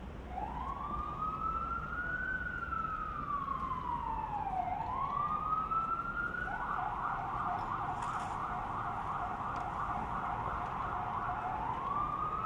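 Electronic emergency-vehicle siren: a slow wail rising and falling, switching about six and a half seconds in to a fast yelp, then back to a rising wail near the end.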